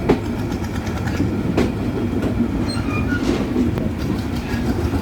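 Passenger train running on the rails with a steady rumble and two sharp wheel clacks, one at the start and one about a second and a half in.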